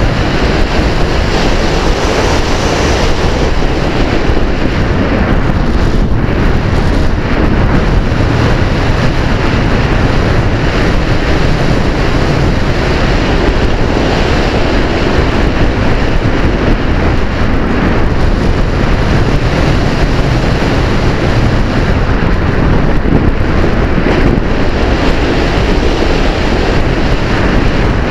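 Steady, loud rush of wind buffeting the microphone of a camera on a Multiplex Easy Glider radio-controlled model sailplane in flight, as airflow over the airframe hits the mic.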